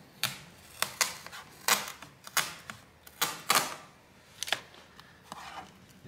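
Long rubber foot strip being peeled off a laptop's bottom case, its double-sided adhesive tape crackling and snapping as it lets go, in a string of irregular clicks.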